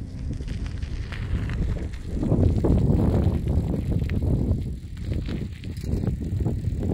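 Low rumbling wind noise buffeting the microphone, swelling and easing in gusts, with a few faint clicks.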